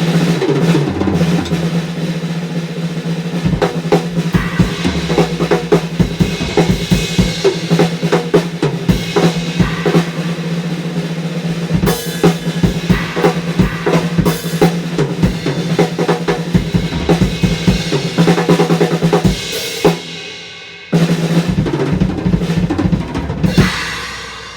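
Gretsch Centennial drum kit played, with rapid bass drum, snare and tom hits and rolls, the drums ringing on between strokes. About 20 s in the playing stops and the sound dies away for about a second, then resumes, and it dies away again near the end.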